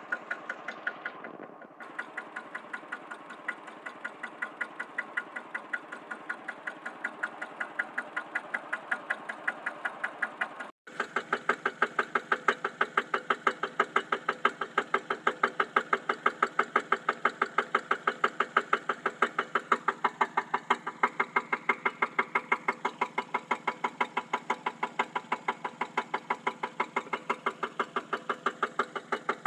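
Single-cylinder horizontal diesel engine running steadily at working speed while it belt-drives an irrigation water pump, with a regular knocking beat. The sound drops out for an instant a little before eleven seconds in.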